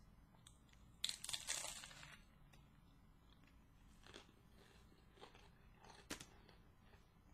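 A person biting into a sandwich and chewing. One loud crunchy bite about a second in, then a few fainter crunches while chewing.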